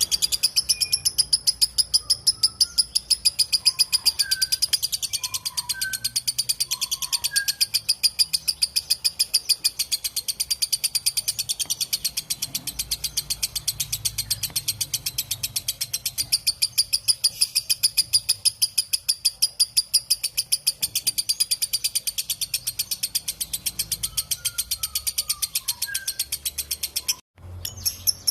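Lovebird in a long, unbroken chattering trill (ngekek panjang): a fast, even run of sharp, high notes, many a second. It breaks off abruptly near the end and starts again. A few faint whistled notes from another bird sound behind it.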